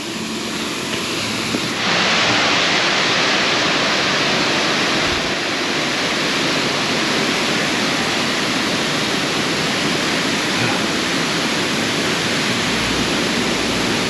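Steady rush of a large, partly frozen waterfall, water pouring over an icy rock ledge. The rush grows louder and brighter about two seconds in, and a low rumble comes in near the end.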